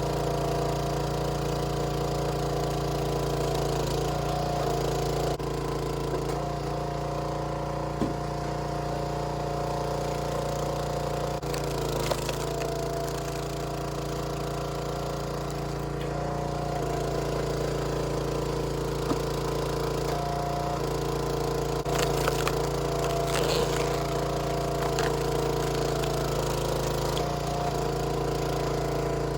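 Small gasoline engine of a 27-ton hydraulic log splitter running steadily. Its pitch sags briefly several times, as an engine does when the hydraulic pump takes load. A few sharp clicks stand out over the engine.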